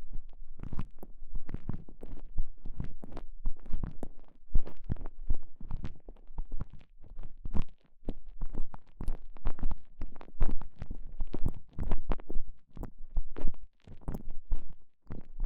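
Soft silicone TENGA Egg sleeve squeezed and worked around a microphone inside it, giving close squishing and rubbing noises in quick, irregular succession, several a second.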